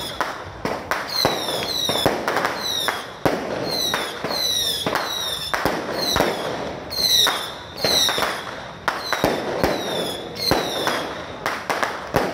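Fireworks going off repeatedly: a string of sharp cracks and pops, with short whistles that fall in pitch about once a second.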